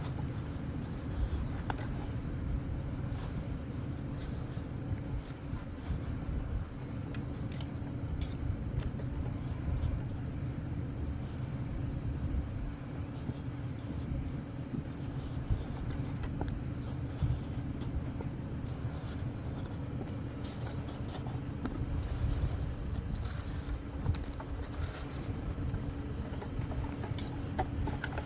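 A steady low engine hum, with scattered light clicks and scrapes over it.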